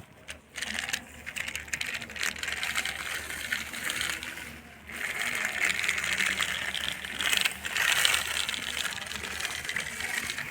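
Loose gravel and soil clattering and rattling as toy construction vehicles scoop and pour it, with a short break about halfway through.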